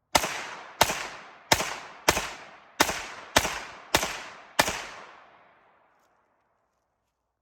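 Eight 9mm shots from a CZ Scorpion Evo fired semi-automatically in a steady string, about 0.6 s apart, each with a short echoing tail; the firing stops a little under five seconds in.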